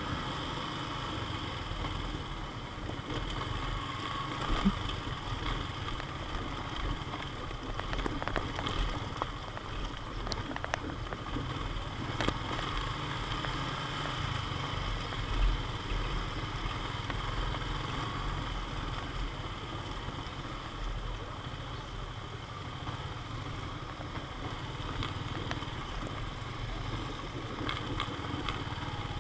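Yamaha Sniper underbone motorcycle's engine running steadily while riding, mixed with wind and road noise, with a few short knocks from the rough dirt surface.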